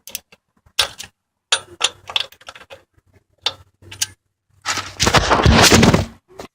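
Irregular clicks and clacks of tools and parts being handled during a transfer case oil change, then a loud scraping rustle lasting about a second and a half near the end.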